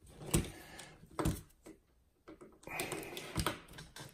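Light clicks and knocks of hard plastic and metal parts being handled and fitted as the front sway bar goes onto a Losi 8ight-T truggy's suspension, with a few sharper clicks spread through.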